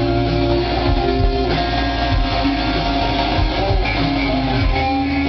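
Rock band playing live and loud, with guitars to the fore over a steady low end.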